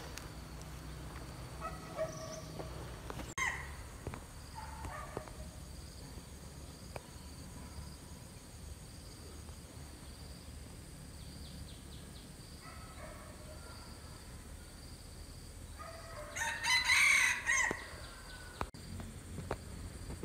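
Red junglefowl rooster crowing several times in short crows: fainter ones in the first few seconds and about two-thirds of the way through, the loudest near the end. A steady high insect drone runs underneath.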